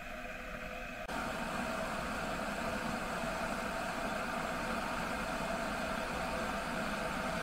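Stainless-steel electric gooseneck kettle heating water: a steady rushing hiss with a low hum under it, stepping up louder about a second in.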